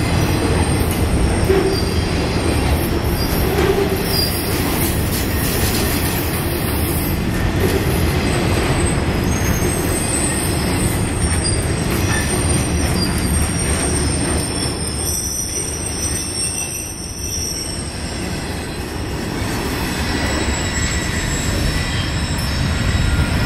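Union Pacific maintenance-of-way rail train rolling past, a steady rumble of wheels on track with high wheel squeal coming and going. The sound eases slightly about two-thirds of the way through, then builds again.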